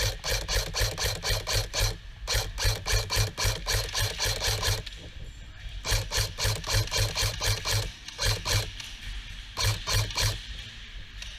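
Airsoft gun firing rapid shots in four bursts of a couple of seconds each, about five shots a second, with short pauses between bursts.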